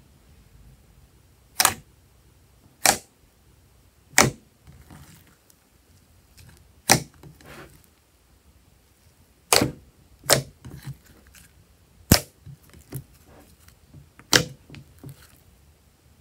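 Thick, glossy slime being stretched, folded and pressed by hand in a glass bowl, giving off sharp pops as trapped air bursts. About eight loud pops come a second or two apart, with fainter clicks and soft squishes between them.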